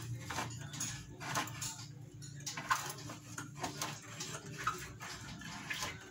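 Light metallic clicks and clinks at irregular intervals over a low steady hum, from the tensioning screws of a mechanical screen-printing mesh stretcher being turned.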